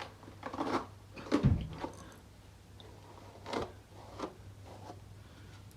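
Hairbrush strokes through a freshly glued wig: a handful of short, separate swishes and rustles, the loudest with a low bump about one and a half seconds in.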